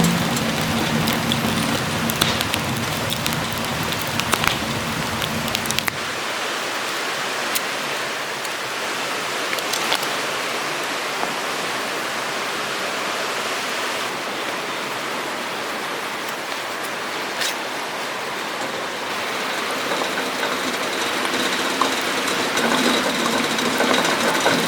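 Wood campfire crackling with scattered sharp pops over the steady rush of a river swollen with high water. About six seconds in the low rumble drops away.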